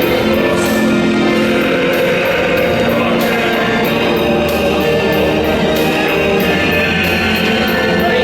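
High school brass band in the baseball stands playing a loud cheering tune over a steady drum beat.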